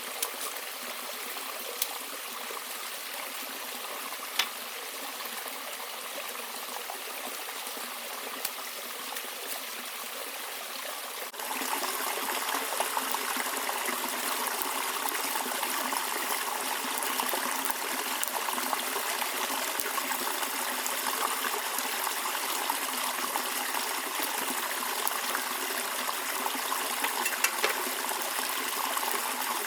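Steady rush of running water, like a small forest stream trickling, with a few sharp ticks in the first seconds. About eleven seconds in it cuts to a louder, brighter stretch of the same water sound.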